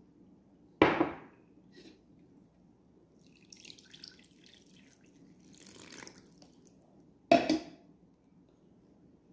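Clear liquid poured from a glass measuring jug into a stainless steel mixing bowl of eggs and flour, trickling and splashing briefly. Two sharp knocks, the loudest sounds, come about a second in and near the end.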